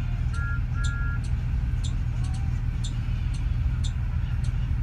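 Steady low rumble of a moving bus heard from inside the passenger cabin, with light irregular clicks and two short beeps about half a second and a second in.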